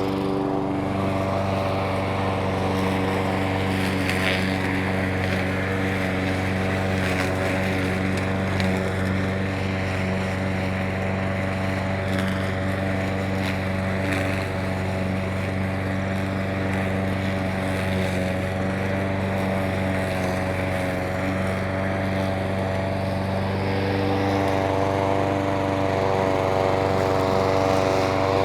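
Petrol lawn mower engine running steadily, with a slight shift in its note about three quarters of the way through.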